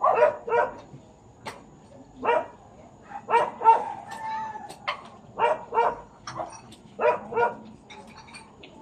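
A dog barking over and over, the barks mostly coming in quick pairs, with one longer drawn-out note in the middle.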